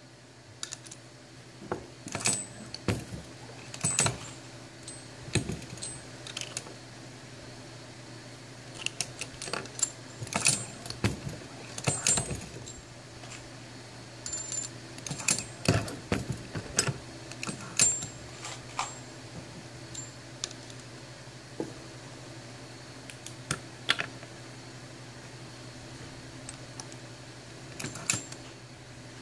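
Hornady Lock-N-Load AP progressive reloading press worked by hand: irregular metallic clicks and clanks as the handle cycles and the shell plate indexes, with brass .45 ACP cases and bullets clinking, some with a brief high ring, as they are set in and taken out. A steady low hum runs underneath.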